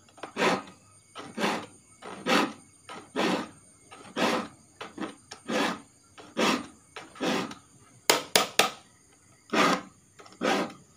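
A steel hand file rasping across the teeth of a wood handsaw, sharpening it by hand in even strokes about one a second. A little past the middle comes a quick run of three sharp clicks.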